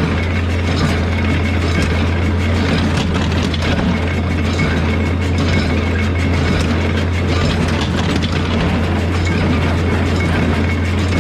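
A tractor engine running steadily while a John Deere small square baler clatters along behind it, its moving parts making a continuous rattling, clicking mechanical noise.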